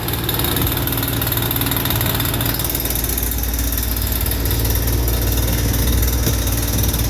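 An engine idling steadily, cold-started, with a low, even hum.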